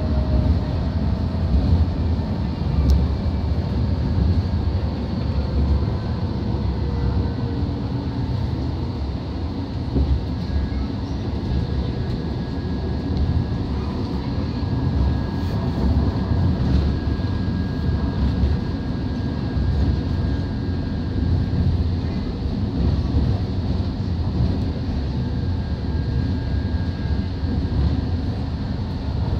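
Alstom Citadis Spirit light rail train running between stations: a steady low rumble of wheels on rail, with a faint steady whine above it.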